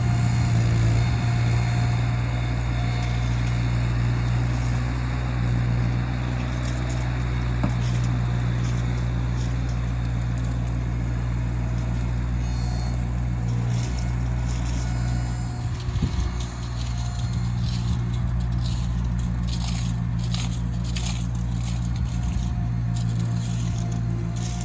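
Engine running steadily with a low hum, joined in the second half by bursts of crackling and scraping.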